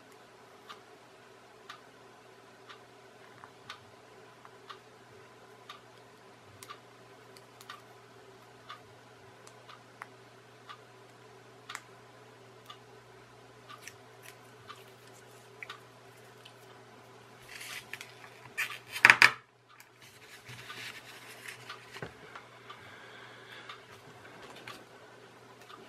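Handling of clear plastic kit parts on a tabletop. Light ticks come about once a second over a low hum. A loud, crackly plastic rustle lasts about two seconds, starting some eighteen seconds in, and is followed by softer crackling.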